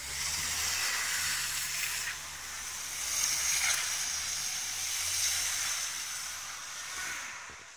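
Volvo S40 driving off through deep mud: a loud hiss of its tyres spinning and slinging mud, over a steady low engine drone, fading near the end as the car pulls away.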